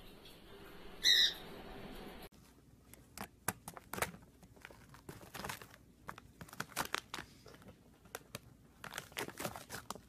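An Amazon parrot gives one short, loud call about a second in. After that comes a run of irregular clicks and crinkles as a parrot moves about on a plastic sheet and handles a crisp taco shell.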